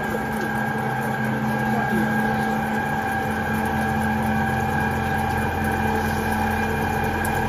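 CNC gantry plate drilling machine with two spindles drilling into steel plate: a steady machine drone with several held tones, and a deeper hum joins about three seconds in.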